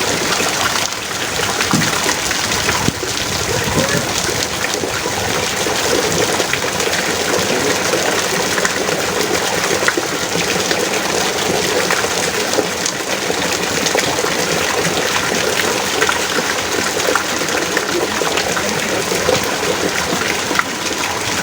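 Heavy rain pouring down steadily: a dense, even hiss of countless drops.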